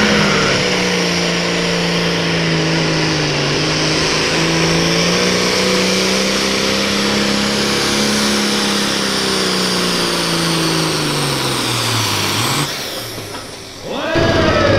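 Pro Farm John Deere pulling tractor's diesel engine running flat out under load as it drags the pulling sled, the pitch steady for about ten seconds. Near the end the pitch sags and falls away as the engine is pulled down by the sled and the throttle comes off, and the sound drops before an abrupt loud change at the very end.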